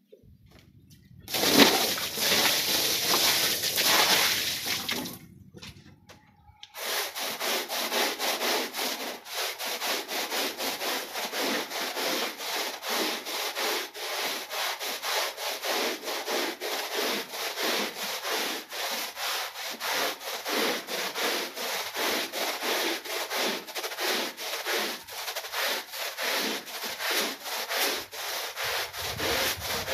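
Long-handled stiff-bristled push brush scrubbing back and forth across a wet, soapy rug, about two strokes a second. A louder stretch of a few seconds comes near the start.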